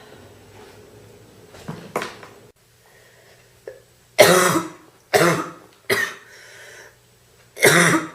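A girl coughing: two smaller coughs about two seconds in, then four loud, separate coughs over the last four seconds.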